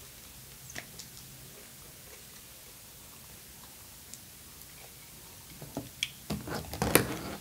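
Small plastic dipping-sauce cup being handled and set down on a table: a couple of faint clicks, then a cluster of crackling plastic and knocks over the last two seconds.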